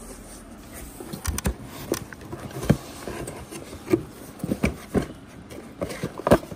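Cardboard packaging being handled: box flaps pushed aside and a boxed set of brake pads lifted out of a shipping box. The sound is a series of short knocks, scrapes and rustles at irregular intervals, a few of them sharper thumps.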